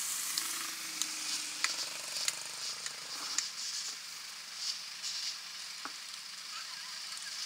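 A steady crackling hiss with scattered sharp clicks, and a faint low hum in the first few seconds.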